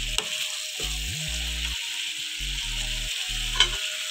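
Prawn curry in a steel pan sizzling as it is stirred with a wooden spatula, with a sharp knock of the spatula against the pan about three and a half seconds in. Background music with steady low notes plays underneath.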